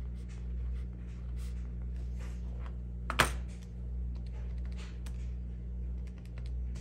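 Keys of a Texas Instruments TI-30Xa calculator being pressed, a scatter of faint clicks, with one sharper knock about three seconds in as the calculator is set down on the clipboard. A steady low hum runs underneath.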